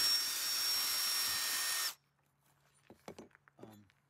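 Power drill running steadily with a high whine for about two seconds as it tightens a nylon lock nut down onto a bolt, then stopping abruptly. A few faint clicks follow.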